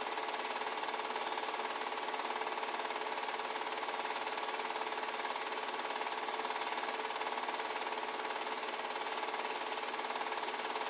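8 mm home-movie film projector running, its mechanism making a rapid, even clatter with a steady whine underneath.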